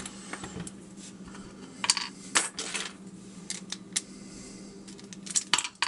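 Small metal lock parts clicking and clinking as an American padlock is taken apart to get its core out: several sharp, separate clinks.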